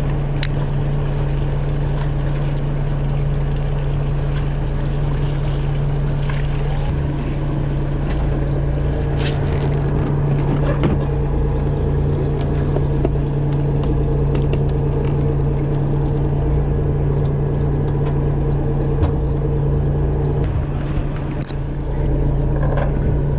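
Fishing boat's engine running steadily with a continuous low hum, with scattered light clicks and knocks over it.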